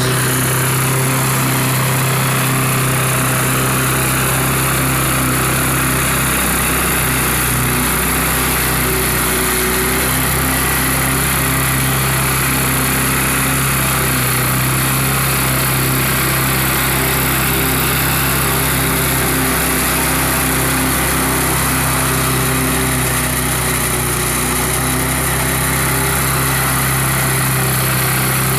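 Engine of a remote-controlled four-wheel-drive lawn mower running steadily at a constant speed.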